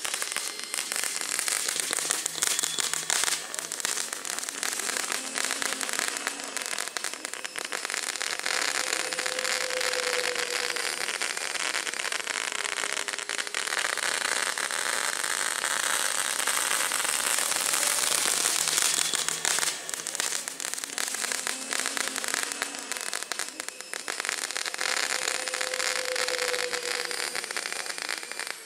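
Dense, continuous crackling of pyrotechnics, with sparks and small reports fizzing together into a steady hiss. The crackle is from crackle-effect fireworks carried on a model aircraft.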